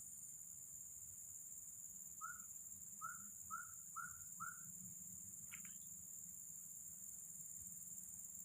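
Faint, steady high-pitched chorus of crickets, with an animal in the undergrowth giving five quick short calls about half a second apart a couple of seconds in, then a single short chirp.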